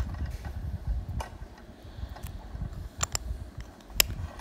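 A few sharp little clicks as the stainless steel screw-down caseback of a Casio Edifice watch is handled and turned back onto the case, over low rubbing from fingers and cloth. The sharpest click comes near the end.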